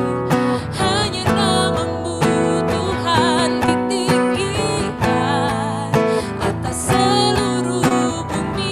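A live worship band plays a slow praise song with strummed acoustic guitar and a voice singing with vibrato.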